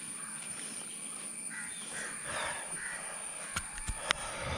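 Crows cawing, a quick run of harsh calls in the middle, followed by a few sharp clicks near the end.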